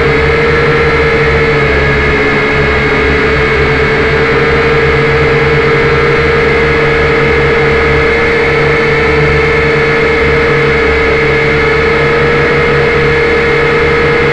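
Quadcopter drone in flight, its motors and propellers making one loud, steady whine whose pitch wavers slightly.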